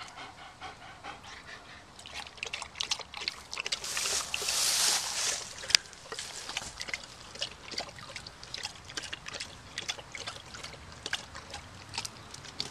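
Black German Shepherd dog lapping water from a plastic bucket: a long run of quick, splashy laps, with a louder hissing splash of water for about two seconds near the middle.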